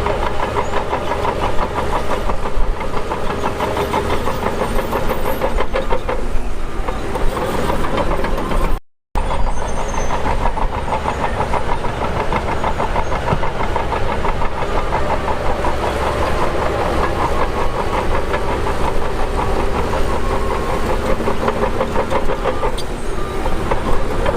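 Heavy earthmoving machinery's diesel engine running steadily under load. The sound drops out completely for a split second about nine seconds in.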